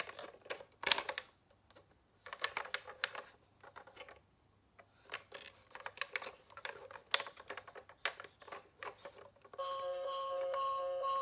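Miniature toy cars clattering and clicking against one another and a hard surface in irregular bursts. Near the end a steady electronic tone with a pulsing beat starts up.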